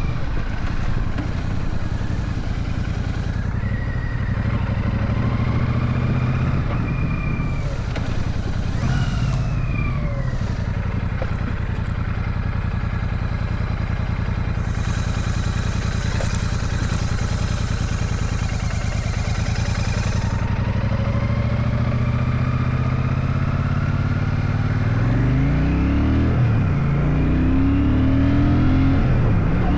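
Royal Enfield Shotgun 650's 648 cc parallel-twin engine running steadily under way, with the revs climbing and changing in the last few seconds.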